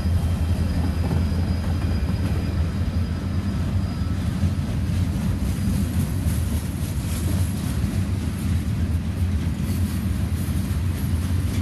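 Cars of a CSX freight train rolling past at speed: a steady, loud low rumble of steel wheels on rail, with a light clatter of clicks in the second half.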